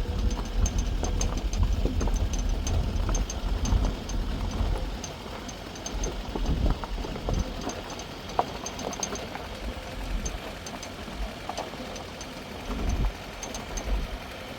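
Wind gusting on the microphone: an uneven low rumble, stronger for the first few seconds and then easing, with faint scattered high ticks.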